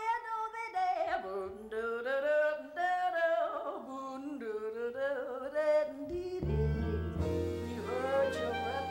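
A female jazz singer scat singing alone, her wordless line sliding up and down in pitch. About six seconds in, the band comes in underneath with low, held notes.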